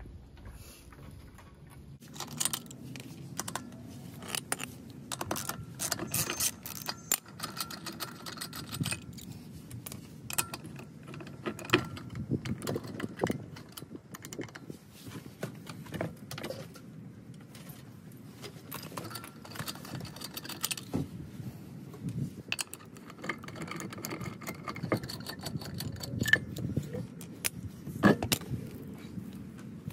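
Metal lug nuts clinking and rattling in irregular sharp clicks as they are handled and threaded by hand onto the wheel studs, starting about two seconds in.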